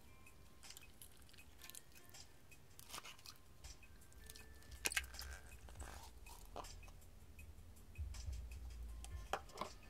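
Cold, stiff slime being scooped and lifted with a metal spoon in a plastic tub: faint scattered clicks and crackles of the slime, with a few sharper clicks.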